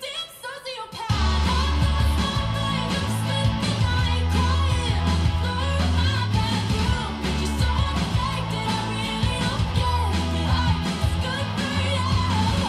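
Pop-punk song with a woman singing, played through Monitor Audio Bronze 100 bookshelf speakers. The full band with heavy bass comes in loudly about a second in after a sparser sung opening.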